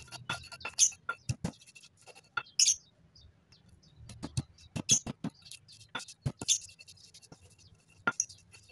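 Stone pestle knocking and grinding in a stone mortar, crushing garlic cloves and candlenuts with salt into a spice paste: irregular sharp knocks, a few a second, with gritty scraping between them.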